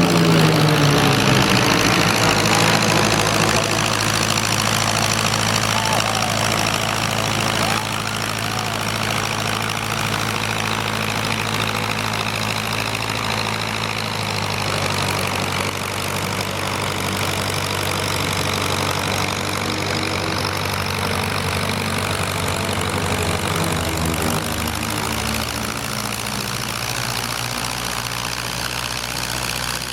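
Lockheed P-38 Lightning's twin Allison V-12 piston engines running at low power. Their pitch falls in the first couple of seconds, then holds steady.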